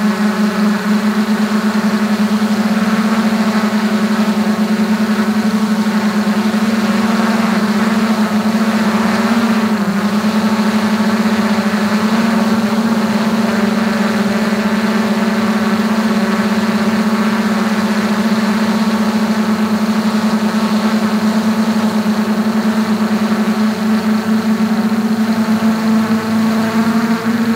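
DJI Mavic 2 quadcopter's motors and propellers in flight, a loud steady hum holding one pitch with many overtones, heard from right on top of the drone's body.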